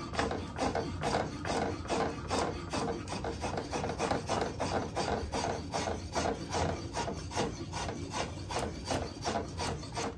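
Oxhead 10-inch curved drawknife on its unsharpened factory edge, drawn in quick short strokes over wood, taking shavings: a steady run of scraping cuts, about three a second. The edge is cutting well.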